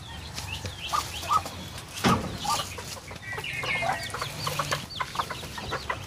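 Chickens clucking, with short high peeps mixed in, many separate calls throughout.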